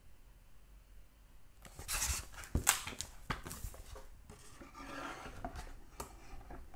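Close handling noise: rustling with several sharp clicks and soft knocks, starting about one and a half seconds in after quiet room tone.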